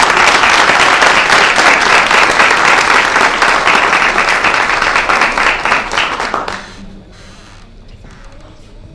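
Applause from a room of people: dense, steady clapping that dies away after about six and a half seconds, leaving only faint background noise.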